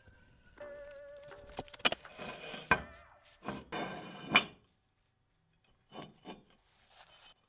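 Metal scraping and rubbing in uneven bursts, with a few sharp clicks, from hand work on a steel plate, such as a hand tap turning in a threaded hole and the plate being slid. Near the end, two short soft knocks as steel pieces are set down.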